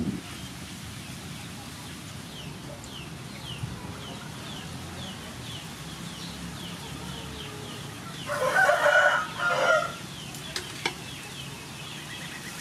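A rooster crowing once, about eight seconds in, the loudest sound here. Under it runs a steady series of short, high falling chirps, about two a second, and two sharp clicks come just after the crow.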